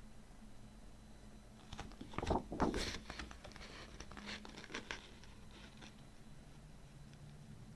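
Vinyl album packaging being handled: a short burst of rustling and scraping about two seconds in, followed by a few lighter taps and ticks, over a faint steady hum.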